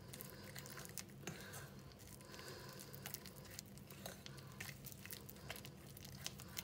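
Faint squishing of a soft mashed-banana and cocoa mixture being stirred in a glass bowl, with light irregular clicks, over a low steady hum.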